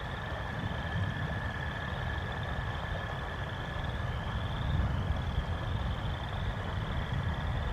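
Thunderstorm sound on an outdoor nest camera's microphone: a low, steady rumble of wind and rain that swells a little midway. Over it, a short high chirp repeats about once a second.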